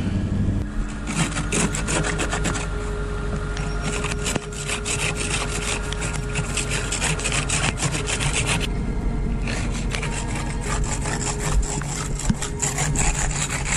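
Ice scraper scraping a layer of ice off a car windshield in quick repeated rasping strokes, with a short pause about nine seconds in.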